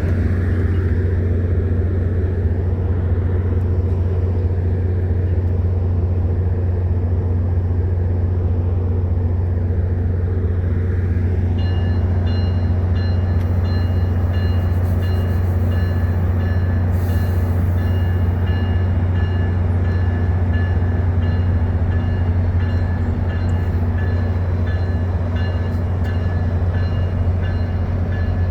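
Train running with a loud, steady, deep engine hum. About twelve seconds in, several high-pitched tones join it, pulsing evenly.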